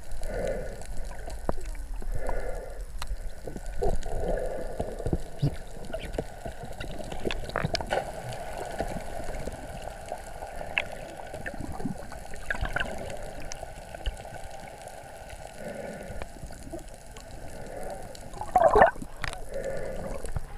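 Muffled underwater water noise from a camera held under the surface: gurgling and sloshing, with scattered clicks and knocks and a louder burst near the end.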